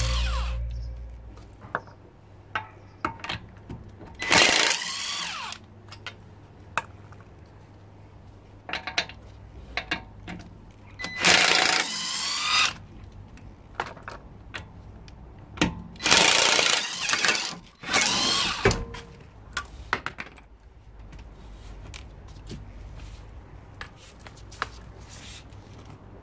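Cordless impact wrench running in several short bursts of about a second each, spinning lug nuts off a car wheel. Between the bursts come sharp metallic clicks and clinks.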